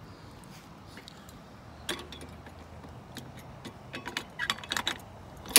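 Scattered light clicks and knocks, several close together about four and a half seconds in, ending in one sharp, loud click, over a faint steady background.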